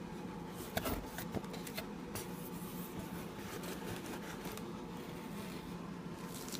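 Paper and cardboard packing from a subwoofer box being handled: soft rustles and a few light clicks, mostly in the first couple of seconds, over a steady low hum.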